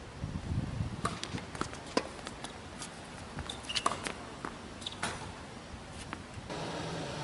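Scattered light taps and scuffs of tennis players moving about a hard court between points, irregular and unhurried. A faint steady low hum comes in about six and a half seconds in.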